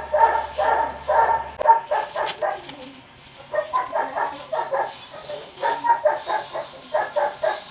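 A dog barking over and over in quick runs of several barks a second, with two short pauses.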